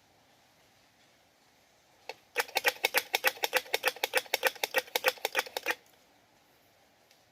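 Squirrel calling to find a mate: a single sharp click, then a fast, even run of loud clicking chucks lasting about three seconds that stops abruptly.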